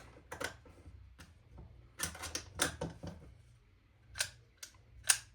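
Airsoft spring rifle parts being fitted back together by hand: a series of short, sharp clicks and knocks, bunched between two and three seconds in.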